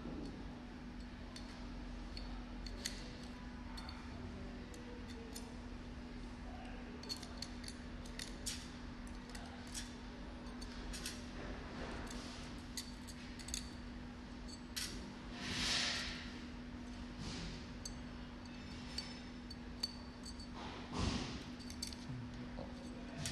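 Small metallic clicks and clinks as steel date-code type pieces are picked out of a metal die holder with a screwdriver, with a couple of louder scrapes about two-thirds of the way through and near the end. A steady low hum runs underneath.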